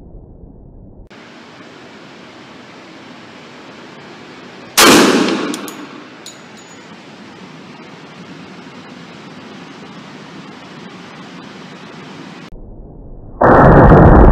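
A single 10mm pistol shot from a Glock 40 MOS about five seconds in, with a ringing tail that dies away over about a second. Near the end a loud, steady rushing noise begins.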